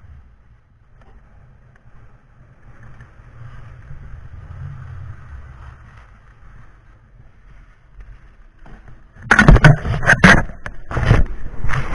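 Quiet rush of skis sliding over packed snow, then from about nine seconds in a run of loud knocks and scraping as the camera is handled and rubbed against its microphone.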